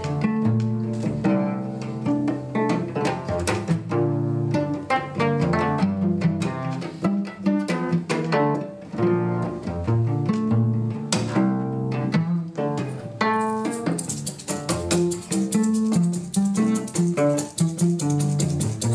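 Solo cello playing a fast passage of short, quick notes mixing bowed and plucked playing. Past the middle, a fast, even pulse of crisp percussive strokes joins the notes.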